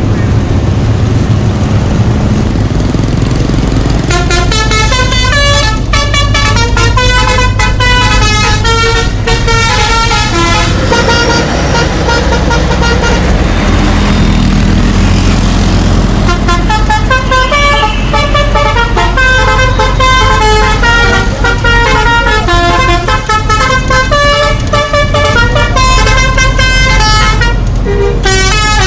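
A bus's musical horn playing a fast tune of short stepped notes, in two long spells with a gap in the middle, over the steady low drone of the bus's engine.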